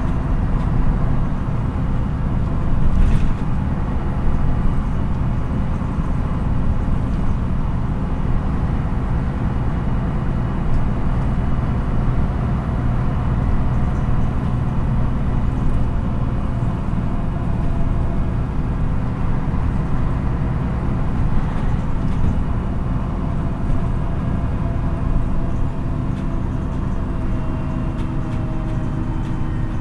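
MAN NÜ 313 bus's diesel engine running steadily under way, heard from inside the bus with road and tyre rumble. A short knock comes about three seconds in, and the engine pitch shifts slightly near the end.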